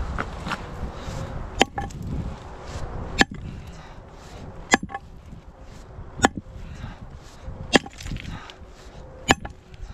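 Sledgehammer striking a large rock, six heavy blows about one and a half seconds apart, trying to split it in two. Each blow is a sharp crack with a short ring.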